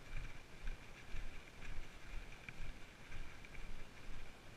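Hiker's footsteps on a wet, muddy dirt track, about two steps a second, with a few light clicks that come with the walking.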